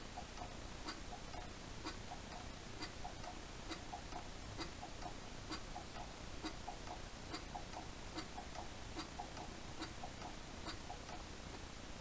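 Lister LR1 single-cylinder diesel engine turned over slowly by hand to circulate the oil, not running. Its mechanism gives a faint, regular click about once a second, with lighter ticks in between.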